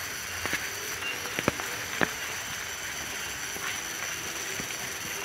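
Footsteps of people walking on a dirt path, a few scattered steps heard over a steady hiss.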